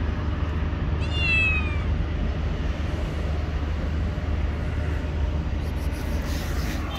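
Tabby cat meowing once about a second in, a single call falling in pitch, over a steady low rumble.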